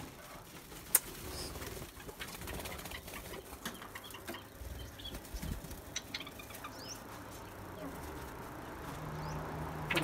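Wings flapping as birds fly about inside an aviary, with a few faint short chirps and a single sharp click about a second in.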